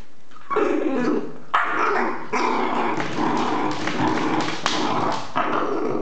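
English Bull Terrier puppy growling and barking in a near-continuous run, starting about half a second in, while it bites and paws at a door stopper.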